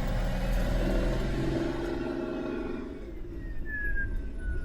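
Semi truck engine and road noise heard from inside the cab while driving, a steady low drone that eases off about three seconds in.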